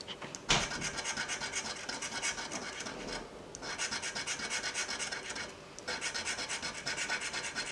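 A coin scraping the coating off a scratch-off lottery ticket in rapid back-and-forth strokes, in three spells with short pauses about three and a half and six seconds in.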